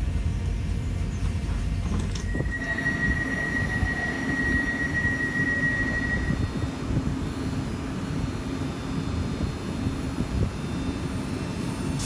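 A Northern Class 331 electric multiple unit standing at a platform, humming steadily. A single steady high tone sounds from about two and a half seconds in to about six seconds in.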